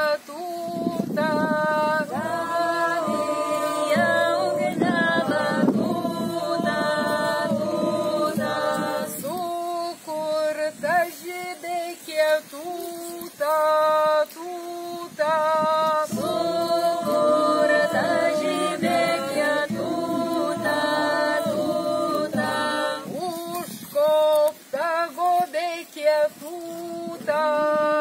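A woman singing unaccompanied, a ritual song of long held notes that bend from one pitch to the next.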